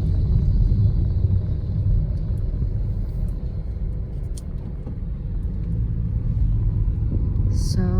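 Car driving slowly over an unfinished, unpaved stretch of road, heard from inside: a steady low engine and tyre rumble.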